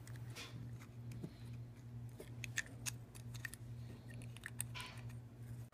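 Small clicks and light scraping of a cutting-wheel mandrel being pushed into and tightened in a Dremel collet nut on a 3D-printed turbine rotary tool, over a steady low hum.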